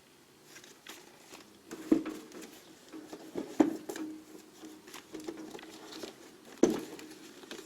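Handling noise at a toolbox: three sharp knocks, about two, three and a half and six and a half seconds in, each followed by a brief low ring, with light rustling and tapping between.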